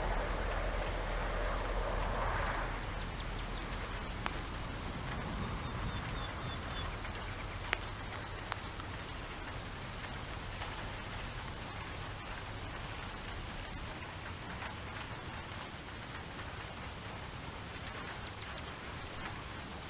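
Steady rain falling, an even hiss with a few sharp drop ticks. A low rumble in the first couple of seconds eases off.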